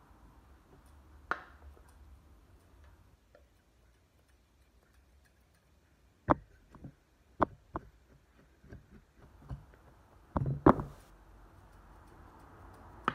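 Scattered short clicks and knocks of grooming scissors and comb being handled and a plastic model dog head being moved about on a grooming table. The knocks come irregularly, bunched in the second half, the loudest a double knock about ten seconds in.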